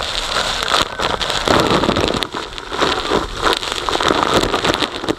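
Waterfall spray drenching an action camera: a steady rain-like hiss of falling water with irregular spatters and knocks as drops hit the camera.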